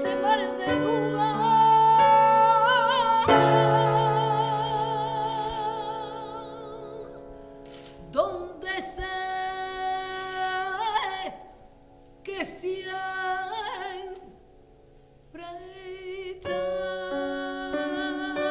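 Flamenco cantaora singing with a wavering, ornamented line, accompanying herself on a grand piano. In the second half the voice carries on over little piano, there is a short hush, and piano chords come back in.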